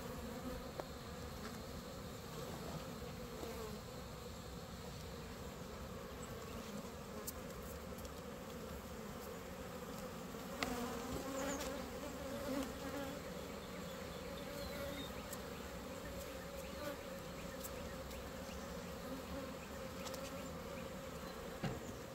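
Honeybees buzzing steadily around an open hive, a droning hum whose pitch shifts slightly as bees fly past. A single sharp knock sounds about ten seconds in, with a few faint clicks.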